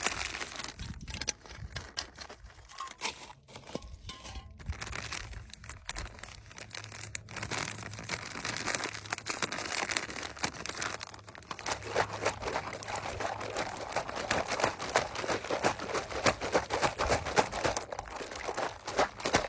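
Thin plastic MRE beverage bag crinkling as it is handled and closed at the top, then crackling more densely and loudly from about seven seconds in as it is shaken to mix drink powder into the water.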